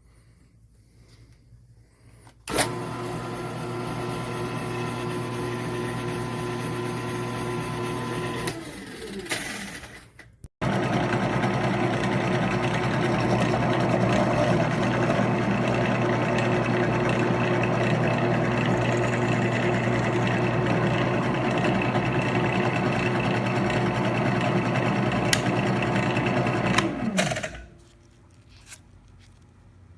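Benchtop drill press motor switched on, running with a steady hum, then spinning down. It starts again, louder and noisier, runs for about sixteen seconds and winds down to a stop near the end.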